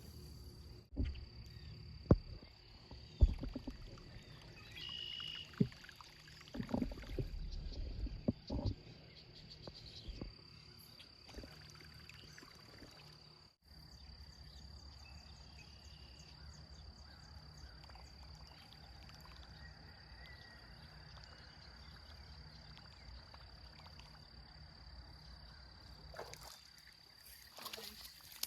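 Several sharp knocks and thumps from fishing gear being handled during the first ten seconds or so. After a brief dropout comes a faint, steady low rumble with a thin high steady tone above it.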